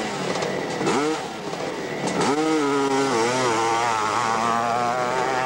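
Hillclimb dirt bike engine blipped twice at the start, then revved hard about two seconds in as the bike launches, and held at high revs with a wavering note while it climbs the hill.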